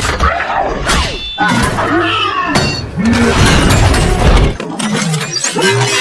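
A busy jumble of crashes and knocks mixed with many short sliding tones.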